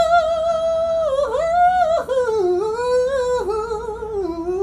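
One voice singing a long high note, held for about two seconds, then wavering down in a slow, descending vocal run.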